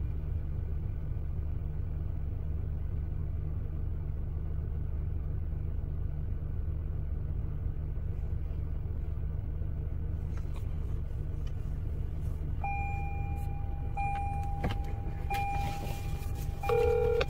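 Steady low rumble of a vehicle's engine and road noise heard inside the cabin. From about two-thirds of the way in, a short electronic tone repeats about every second and a half: an outgoing phone call ringing through the car's audio.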